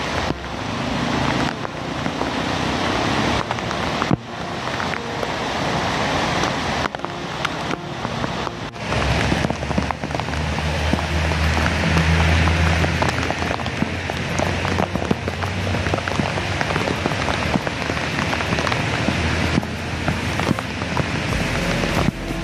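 Heavy rain pouring down in a steady hiss, with a vehicle engine humming past in the middle.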